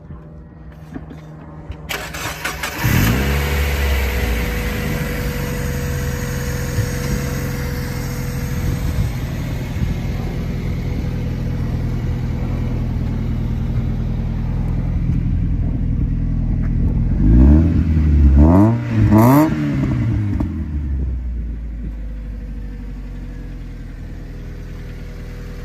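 2003 Mazda Miata SE's 1.8-litre four-cylinder engine, fitted with an open cone air filter, cold-started: the starter cranks briefly about two seconds in, the engine catches with a rev flare and runs at a fast cold idle. About seventeen seconds in it is given three quick throttle blips, then it settles to a lower, quieter idle.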